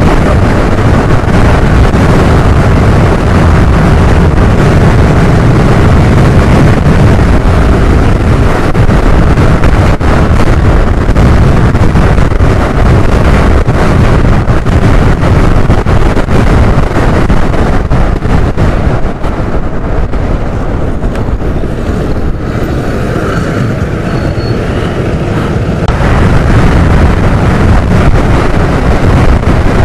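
Heavy wind rushing over the microphone of a Suzuki scooter riding at highway speed, around 80 km/h, with road and engine noise underneath. The rush eases for a few seconds past the middle, then comes back.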